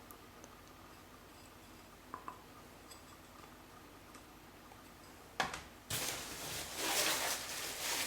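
Low room tone with two faint ticks, then about five and a half seconds in a sharp click followed by loud, uneven rustling and crinkling of packaging being handled.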